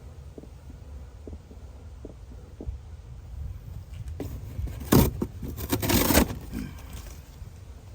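Light metal clicks and rattles from handling a bee smoker while relighting it, with louder scraping rustles about five to six seconds in.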